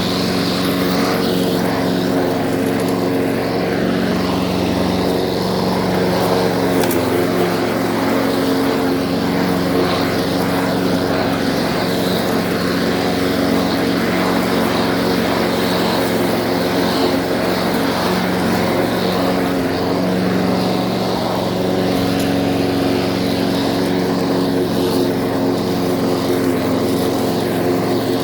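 Small lawn mower engine running steadily at a constant speed, with no revving or stalling.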